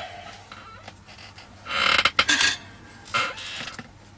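Clattering and rustling of tools being handled at a workbench as soldering gear is picked up. The loudest burst comes about two seconds in, with a shorter one a little after three seconds.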